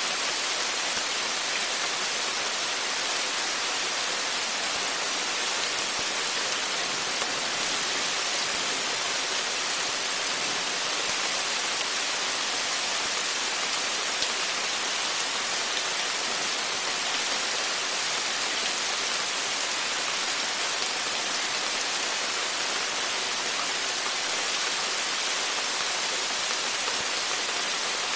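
Rain falling steadily on and around a porch: a dense, even hiss of drops that holds level throughout.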